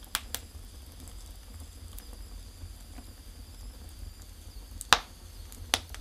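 Firewood burning in a Russian brick oven, crackling: sharp pops of the burning logs, two close together just after the start and two louder ones near the end, the loudest about five seconds in, over a low steady rumble.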